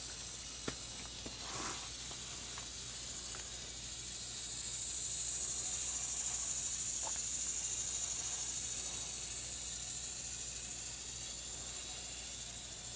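Small electric motor of a Tomytec Moving Bus System N-scale model bus running with a high hiss as the bus drives around its oval road, louder in the middle as it passes along the near side of the loop. A few faint clicks come in the first few seconds.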